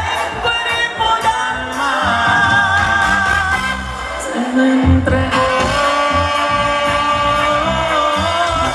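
Live grupera band playing: long held melody notes over a steady bass and drum beat.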